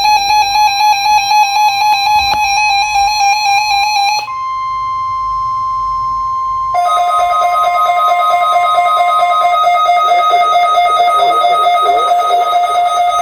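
Weather-radio Emergency Alert System alert tones. A rapidly fluttering electronic tone plays for about four seconds, then gives way to a steady high alarm tone. A couple of seconds later a lower steady tone joins it, and the high tone drops out a few seconds after that.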